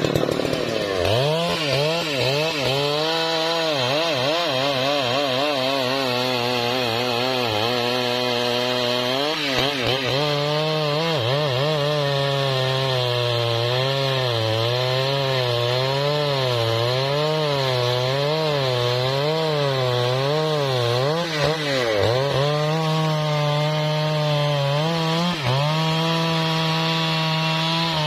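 Husqvarna 3120 XP's large two-stroke chainsaw engine cutting through a trembesi log, its pitch rising and falling about once a second as the chain loads and frees in the wood. Near the end the pitch dips sharply once, then holds steady at high revs.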